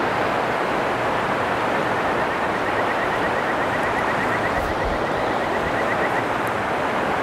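River water rushing steadily over rocks in a shallow riffle. A faint rapid high ticking trill sounds through the middle of it.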